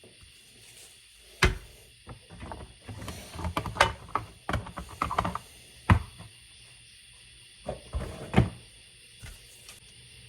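Scattered knocks and clicks of handling, with a busy cluster in the middle: small disassembled chainsaw carburetor parts and tools being moved about on a work surface just before cleaning.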